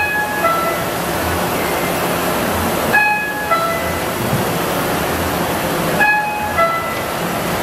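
RYOBI 758P eight-colour offset printing press running with a steady mechanical din. Over it, a two-note electronic warning chime, a higher note then a lower one, sounds three times about three seconds apart.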